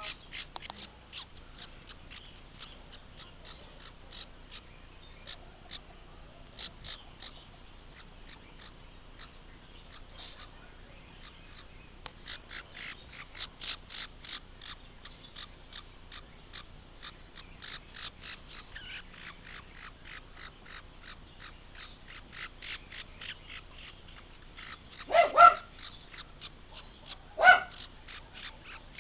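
Baby parrot chick peeping rapidly and repeatedly, high-pitched, about four calls a second. Two much louder, harsh squawks come near the end.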